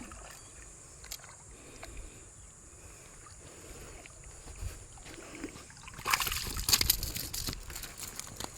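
Water sloshing and splashing, with a louder burst of splashing about six seconds in.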